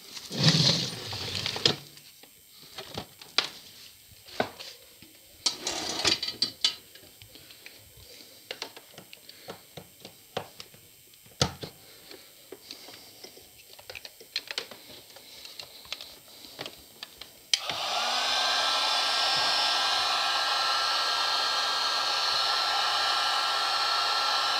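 Scattered light clicks and rustles of small parts being handled. About three quarters of the way in, a hot-air gun switches on suddenly and runs with a steady fan hiss and whine, blowing hot air to shrink heat-shrink tubing onto a worn mixer clutch spline.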